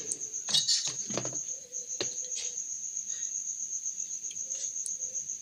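A cricket chirping in a steady, high, pulsing trill. A few light clicks and taps sound in the first couple of seconds.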